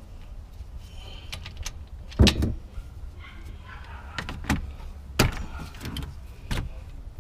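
Metal hand tools knocking and clicking under a car: a torque wrench and 24 mm hex socket being taken off a freshly tightened gearbox drain plug and handled. About half a dozen sharp knocks come at irregular intervals, the loudest about two seconds in, over a low steady rumble.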